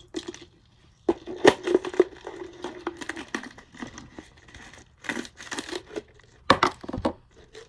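Masking tape being torn and peeled off a wrapped object. The crinkling and crackling comes in irregular bursts, with brief pauses between them.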